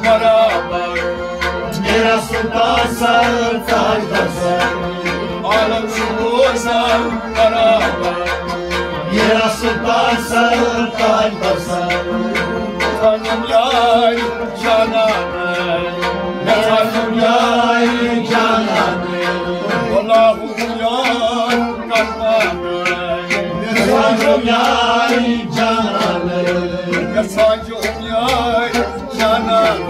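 Sufi devotional music: a tabla keeps a steady beat under a continuous melodic line that bends in pitch.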